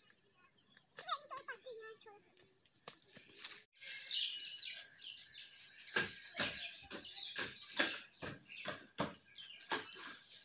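Steady high-pitched insect chorus, crickets or cicadas, with faint bird chirps over it. About three and a half seconds in it cuts off abruptly, and a series of irregular knocks follows.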